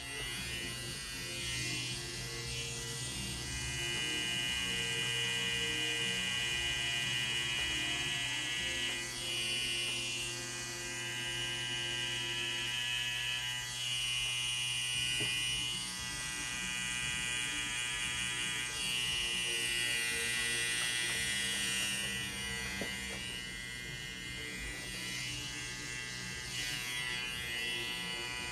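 Electric tattoo machine buzzing steadily as the needle works, its tone shifting now and then.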